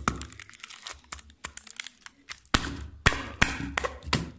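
Plastic wrapping on a Flex Tape container being peeled and handled by hand: irregular crackling, crinkling and sharp snaps, with a louder run of crackles about two and a half seconds in.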